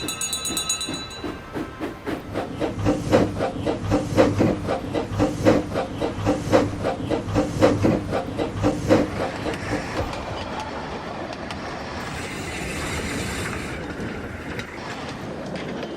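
Steam engine sound effects: a short high whistle at the start, then regular puffing chuffs about twice a second as the engine works its train of trucks, easing off about ten seconds in into a steady hiss of steam and rumble of rolling wheels.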